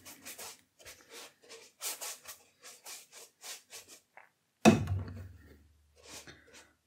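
Watercolour brush scrubbing across watercolour paper in quick back-and-forth strokes, about three a second. A sharp knock comes about two-thirds of the way through, then a few more brush strokes.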